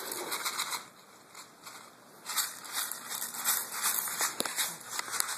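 Irregular crunching and scraping of movement over loose brick rubble, in a short burst at the start and a longer run from about two seconds in.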